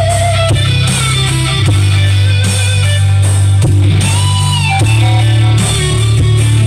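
Loud rock music led by guitar, with a heavy bass line and a sustained melody line that bends and wavers in pitch.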